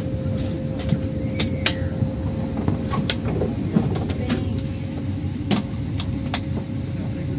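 Cabin noise inside an Airbus A350-1000 on the ground: a steady low rumble with a steady hum above it, and scattered sharp clicks and knocks throughout.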